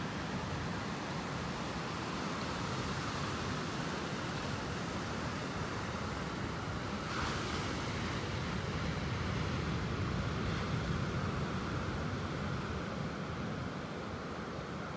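Steady ocean surf mixed with wind noise: an even wash of noise with no distinct calls or voices.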